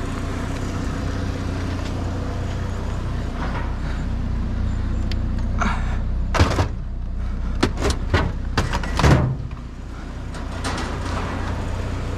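A vehicle engine idling with a steady low hum. About halfway through come a handful of sharp knocks and clatters, the loudest near the end, like scrap being handled or a door banging.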